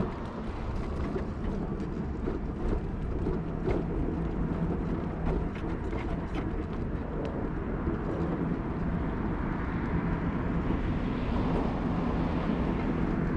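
Footsteps walking on a packed gravel path, light regular crunches, over a steady low rumble of outdoor traffic with a faint hum from a passing vehicle.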